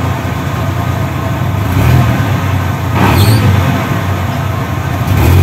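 Tube-frame offroad buggy's engine running at idle, a steady low, rough sound that swells slightly a few times. A brief sharp noise cuts in about three seconds in.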